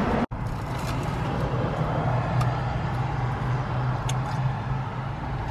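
Steady low hum of a Toyota car's engine and road noise heard inside the cabin, with a few faint clicks. It comes in after a brief dropout right at the start.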